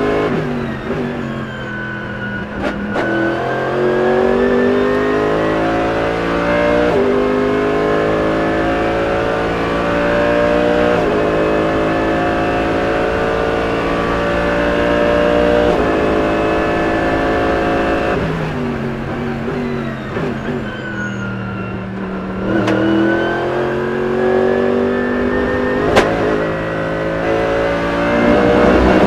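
Mercedes-AMG GT3's naturally aspirated V8 racing engine heard from inside the cockpit at speed. The note falls as the car slows into a corner, then climbs through three upshifts. It falls again as the car slows past the middle, then climbs with two more quick upshifts near the end.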